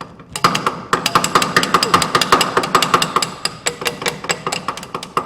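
Hand ratchet wrench clicking rapidly with a metallic ring, starting about half a second in, as it runs a nut down on the leaf spring hardware.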